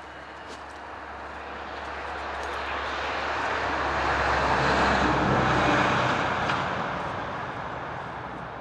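Engine noise that swells smoothly to a peak about five seconds in and then fades: something with an engine passing by.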